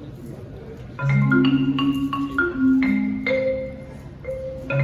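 Marimba played with mallets: after about a second of room tone, a run of struck notes begins, low notes ringing under quicker higher ones, easing briefly near the end before picking up again.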